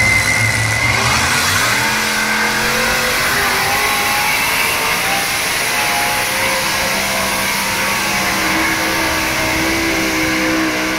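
Modified pulling tractor's engines at full throttle, hauling the weight sled down the track: the revs climb over the first two seconds, then hold high and steady.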